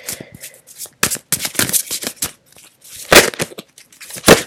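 Tarot cards being handled and shuffled: an irregular run of quick papery clicks and snaps, with two louder snaps, one a little after three seconds in and one near the end.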